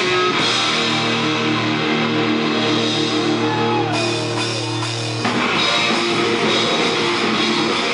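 Live rock band playing electric guitars, bass and drum kit, heard loudly in the room. A chord is held ringing over a steady bass note while one note slides in pitch, then the full band with drums comes crashing back in about five seconds in.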